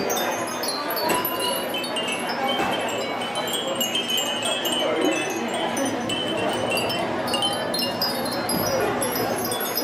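Many Japanese furin wind chimes tinkling together: a dense, continuous scatter of short, overlapping high ringing tones, over a steady background hum.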